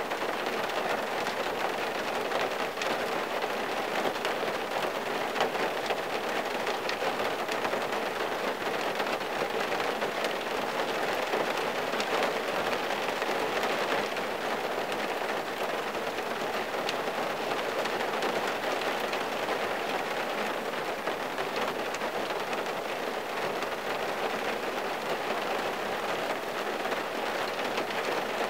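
Steady rain falling on a car, heard from inside the cabin, with individual drops ticking on the windshield glass.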